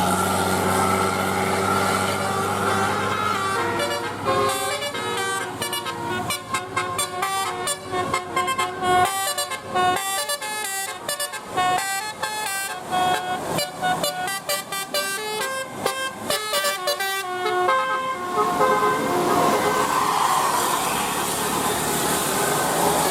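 Bus telolet horn playing a fast melodic run of changing notes for about fourteen seconds, starting a few seconds in. Engine noise runs before and after the tune.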